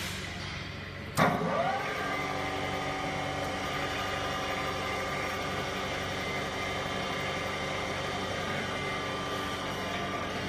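Roots vacuum pump on a vacuum oil purifier cutting in automatically about a second in: a sudden clunk and a rising whine as it spins up, then it runs steadily with a multi-tone whine over the vacuum pump already running. It switches on by itself when the system vacuum reaches −0.08 MPa.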